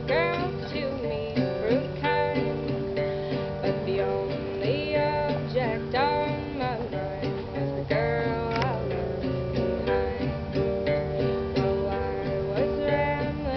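Live acoustic guitar music, strummed, with a gliding melody line over it.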